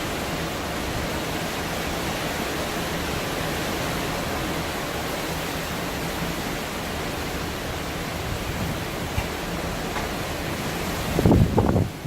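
Hurricane wind blowing hard in a steady rush, with gusts buffeting the microphone and a louder low blast of wind noise near the end.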